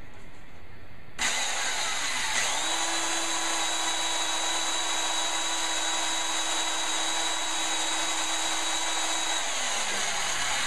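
Power drill starting about a second in, its motor speeding up to a steady pitch and running for several seconds, then slowing down and stopping near the end.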